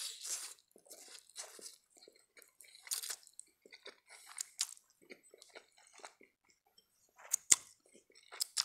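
Close-miked eating sounds: spaghetti being slurped in and chewed, in short irregular wet bursts. Two sharp, loud clicks come near the end.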